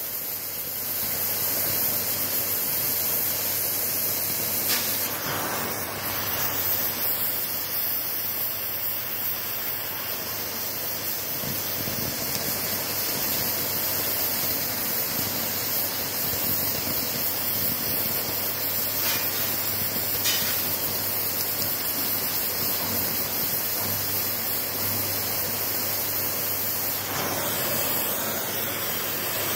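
Oxy-fuel cutting torch hissing steadily as its flame and oxygen jet cut through steel plate. The hiss changes near the end.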